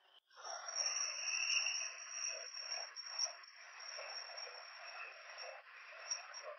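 Ghostbox, a modified world-band radio sweeping through medium-wave stations, putting out noise-reduced static with jumbled, indistinct voice fragments, like a discussion whose words can't be made out. The sound starts about a quarter second in and continues steadily.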